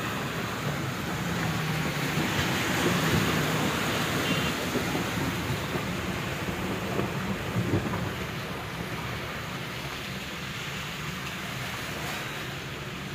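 Car heard from inside the cabin while driving slowly: a steady engine hum under the swish of tyres through standing water and mud, with a couple of soft knocks from the body over bumps about halfway through.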